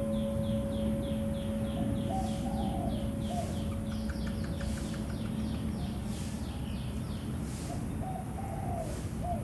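A bird chirping in a rapid, even series of short high notes, about four a second, that stops near the end. Underneath, the ringing tone of a struck bell fades away, and a lower call is heard twice.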